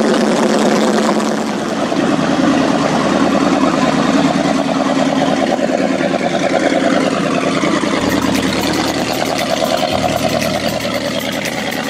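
Powerboat engines running at cruising speed, with water rushing along the hulls. Partway through, engine notes glide up and down in pitch, and the sound changes abruptly about eight and ten seconds in.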